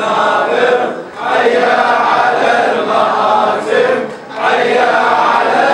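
A congregation of men chanting a Muharram mourning refrain (latmiya) in unison, in long phrases with short breaks about a second in and about four seconds in.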